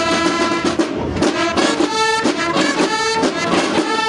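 Drum-and-bugle marching band (Mexican banda de guerra) playing a march: held bugle notes over steady snare drumming.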